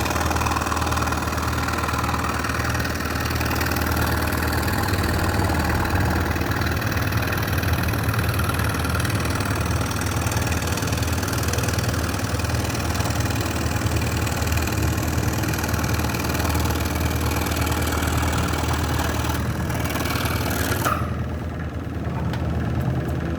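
Scroll saw running and its blade sawing through wood: a steady motor hum under a constant sawing noise. Near the end the sawing noise drops away while the saw keeps running.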